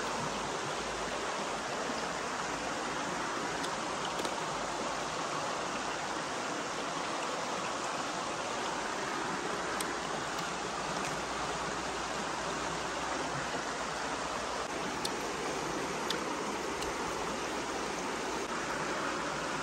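Steady rushing of a stream flowing over rocks, with a few faint clicks over it.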